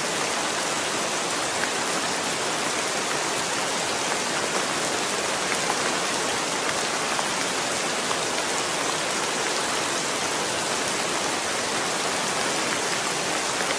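Heavy rain falling steadily on a wet stone ledge and puddles: an even hiss with faint scattered ticks of single drops.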